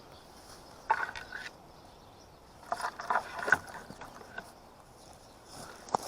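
Bushy branches and leaves rustling and crackling as someone pushes into a bush, in two short clusters about a second and three seconds in, with a sharp click just before the end.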